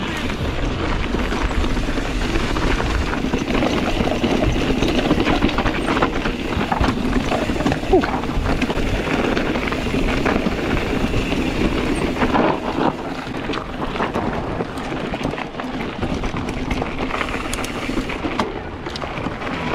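Kona Process 134 full-suspension mountain bike ridden along a dirt trail: tyres rolling over dirt and stones, with chain and frame rattling and frequent sharp clicks over bumps. Wind rumbles on the microphone underneath.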